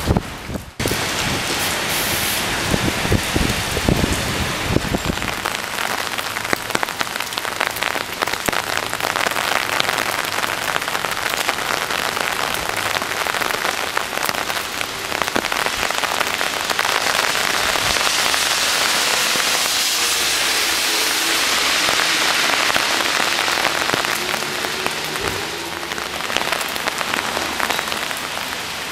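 Heavy storm rain falling and spattering on surfaces, a dense hiss full of individual drop impacts. A low wind rumble sits under it for the first five seconds or so.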